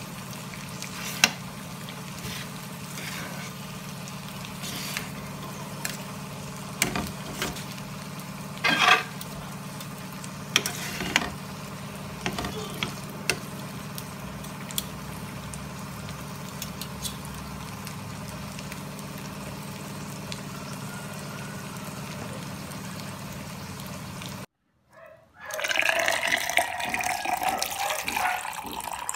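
Metal spatula and spoon clicking and scraping against a metal pan as diced chicken and tofu sisig is stir-fried, over a steady low hum. After a short break about 25 seconds in, orange juice is poured into a glass mug, its tone rising as the mug fills.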